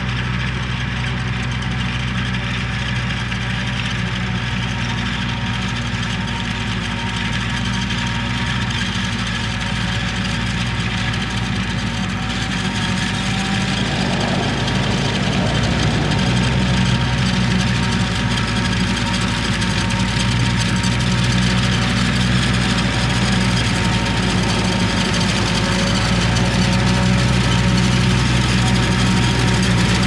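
Self-propelled forage harvester running at work, chopping standing silage corn and blowing it into a truck running alongside: a steady diesel drone with several constant tones over it, growing a little louder past the middle.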